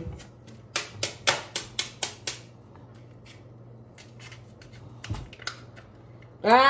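A quick run of about seven sharp clicks in under two seconds, then one more click about five seconds in, as holes are poked in the top of a sprinkles container.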